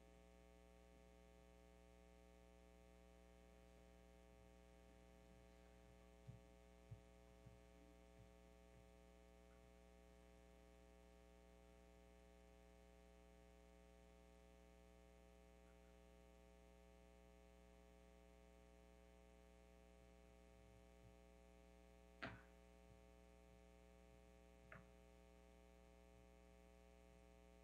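Near silence filled by a steady electrical mains hum. A few faint knocks come about six to eight seconds in, and two sharper clicks come near the end, the louder one about 22 seconds in.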